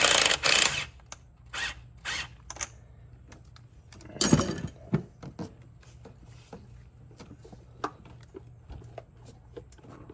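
Tools working on the 10 mm fastener of a turbo charge pipe. A short burst of noise opens it, followed by scattered clicks and light clanks of metal.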